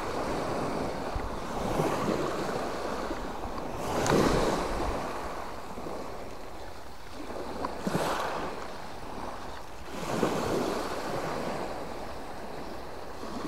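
Small Mediterranean waves breaking and washing up a stone beach about four times, with the steady hiss of the sea between them.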